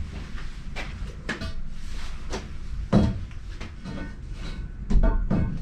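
Several separate knocks and clunks of things being handled, the loudest about three seconds in and another pair near the end, over a steady low hum.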